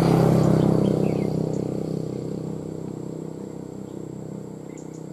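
Engine of a passing motor vehicle, loudest at the start and fading steadily as it moves away, with a few faint bird chirps in the first second or so.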